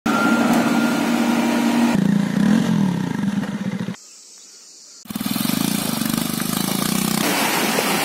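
Vehicle engine running in short clips joined by cuts, dropping out for about a second near the middle. A rushing noise takes over near the end.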